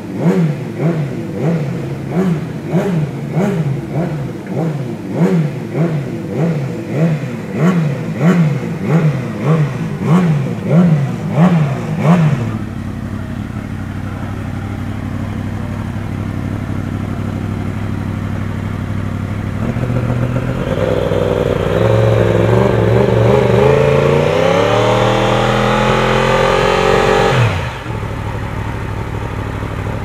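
A regular run of short revving blips, a little more than one a second, for the first twelve seconds. Then a Yamaha YZF-R1 race superbike's inline-four idles. Its revs climb and are held high and loud for several seconds for the scrutineering exhaust-noise test, then drop back sharply to idle near the end.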